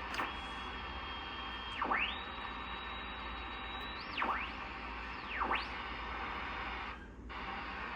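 National HRO-500 shortwave receiver being tuned across the 20-metre band: hiss from its speaker with heterodyne whistles. One whistle holds a steady high pitch, then three times a whistle sweeps down and back up as the tuning passes a signal. The hiss cuts out briefly about seven seconds in.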